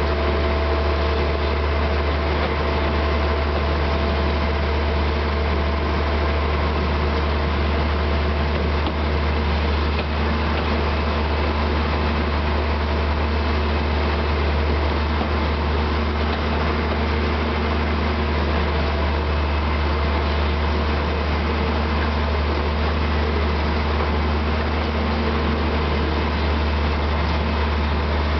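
Narrow-gauge diesel locomotive running steadily with a strong, unchanging low drone, heard from the train.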